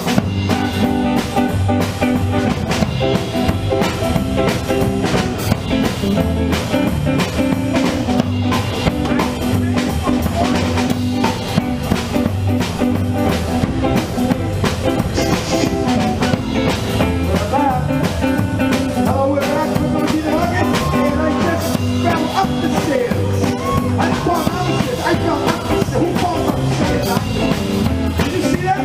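Live rock-and-roll band playing, with a drum kit keeping a steady beat, electric guitar and bass.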